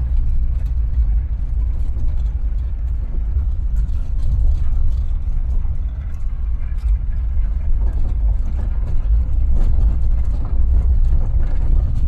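Volkswagen Kombi van driving slowly, heard from inside the cab: a steady low engine and road rumble.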